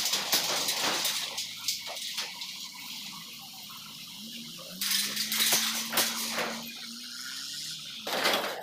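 Irregular metallic clanks and rattles as motorcycles and a small pickup truck drive over a ferry's steel loading ramp, over the noise of their engines.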